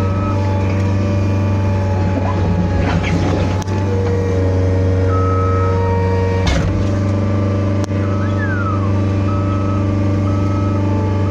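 Diesel engine of an earthmoving machine running steadily at a constant speed, close and loud. A reversing alarm beeps on and off, with a run of short, evenly spaced beeps near the end, and there are a couple of sharp clicks in the middle.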